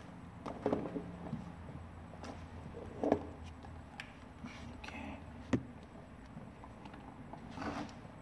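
Scattered knocks and clicks of a tool and small parts being handled, five or so separate taps, with a faint low hum underneath. No power tool is running.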